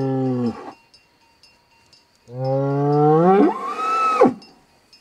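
Fighting bull bellowing. A low, steady bellow ends about half a second in. After a pause, a second bellow starts low, climbs in pitch and breaks into a high, held cry before falling away.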